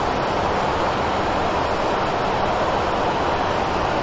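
Steady rushing noise of an airliner's engines and airflow heard inside the flight deck while descending to land.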